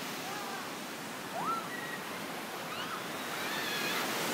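Steady rushing background hiss with several short whistled bird calls over it: one quick rising whistle about a second and a half in, and a few more thin whistles near the end.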